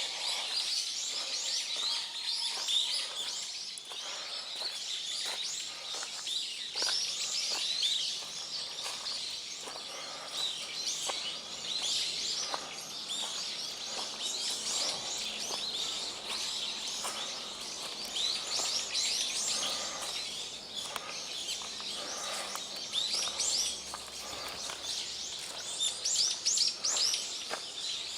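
A flock of small wild birds chirping busily: a dense, unbroken chatter of short high chirps.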